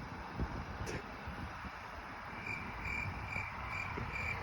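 A high chirp repeating evenly about three times a second, starting about two seconds in, over low wind rumble on the microphone and a few soft knocks early on.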